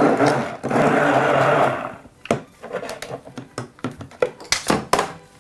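Immersion blender running in a steel pot of thick walnut sauce, then switched off about two seconds in. After it stops come a series of light clicks and knocks.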